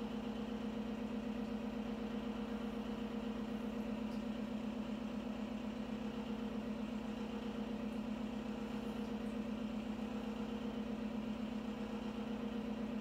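Steady machine hum with a fast, even flutter.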